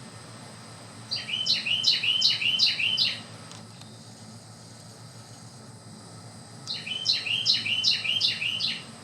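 A songbird singing two loud songs a few seconds apart. Each song is a quick run of about six repeated notes, each note dropping then hooking up in pitch.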